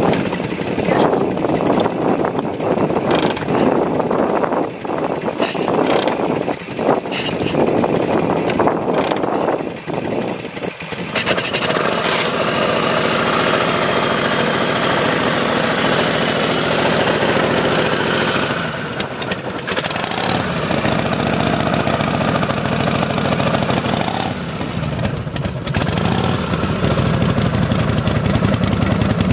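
Vintage Harley-Davidson V-twin being kick-started, with irregular knocks and bursts from the attempts. About eleven seconds in the engine catches and runs on steadily at idle, dipping briefly twice.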